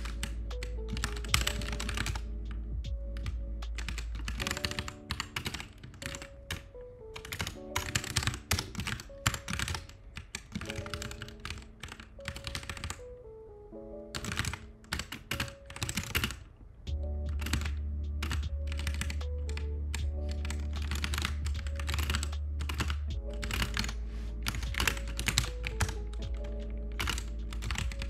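Computer keyboard typing: irregular bursts of key clicks from short editing keystrokes, over lofi background music with a steady bass line and a stepping melody.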